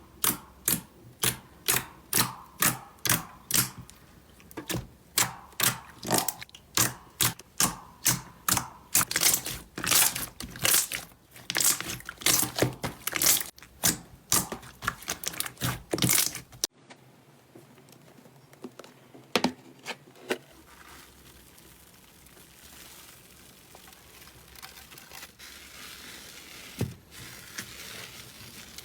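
Slime being pressed and squeezed by hand, giving sharp crackling pops about twice a second. After a cut about two-thirds of the way through, a quieter, steady rustling of slime being worked, with a few faint clicks.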